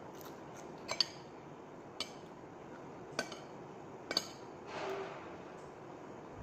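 Metal cutlery clinking against a ceramic dinner plate as food is scooped up: about four sharp clinks roughly a second apart.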